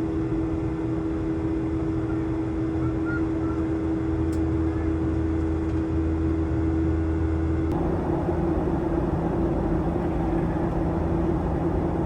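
Steady cabin noise of a jet airliner in flight: a constant engine drone with an even rush of air. About eight seconds in, the drone shifts to a fuller, rougher sound with a new low hum.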